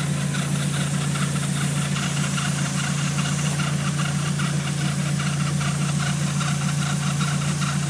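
VW Gol GTi 16v engine idling steadily with a fast, regular chirping over the hum, a belt noise that the owner says gets louder as the engine warms up.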